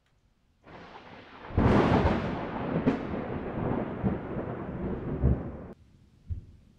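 Thunder: a sharp crack about a second and a half in, then a long rumble that stops abruptly, followed by one low thump near the end.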